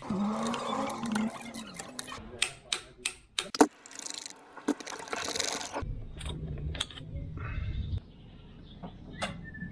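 Metal hand tools clicking and clinking while working in an engine bay, a string of separate sharp clicks with the loudest about three and a half seconds in.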